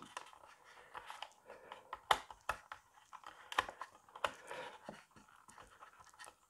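Light, irregular clicks and taps of small plastic scale-model parts and a screwdriver being handled while a part is screwed in place.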